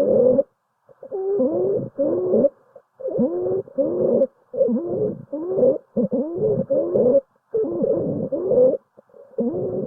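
Stridor: a pitched, musical breath sound repeating with rapid breaths, about two a second, its pitch bending within each breath. It is the sign of a narrowed upper airway.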